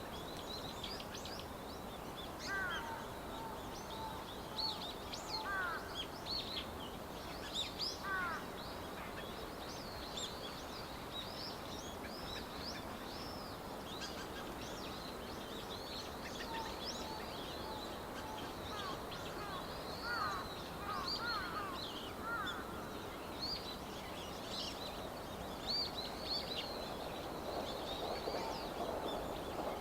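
Dusky thrush calling: scattered short, sweeping chirped call notes over a steady background hiss, which swells near the end.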